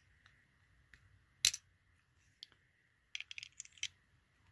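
Light clicks and taps of a small diecast toy trailer being handled as its little ramps are slid into place under the bed: one sharp click about a second and a half in, then a quick run of light clicks near the end.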